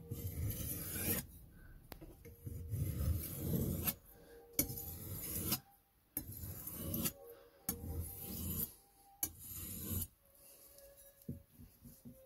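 Steel kitchen-knife blade drawn across a water-lubricated sharpening stone in a series of strokes about a second each, a rasping grinding with every pass, as the burr is ground off the edge. The strokes give way to a few lighter, quieter touches near the end.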